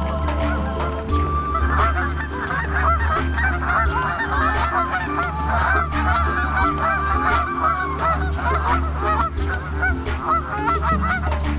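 A flock of birds calling, many short honking calls overlapping, starting about a second in, over a steady bed of background music.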